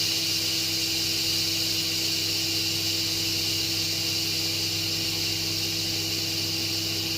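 Pressure King Pro electric pressure cooker venting steam through its release valve: a steady hiss over a low hum, as the pressure is let off.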